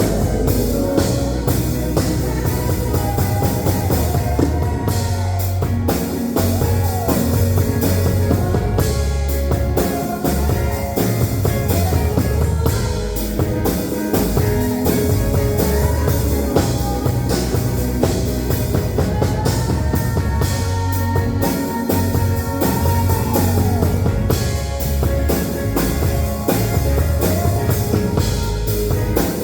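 A band playing rock-style music with a drum kit and guitars, a steady low-end beat and a bending lead line above it.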